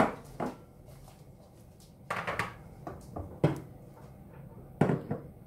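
A spatula knocking and scraping against a stainless steel pan as blocks of butter are pushed around: a sharp knock at the very start, then a few more short clatters about two, three and a half and five seconds in.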